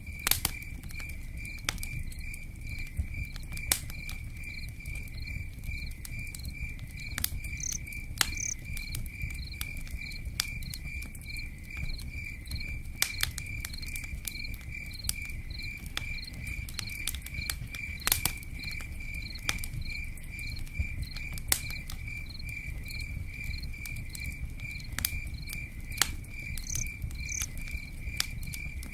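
Cricket chirping steadily, about two chirps a second, over the crackle of a campfire with scattered sharp pops.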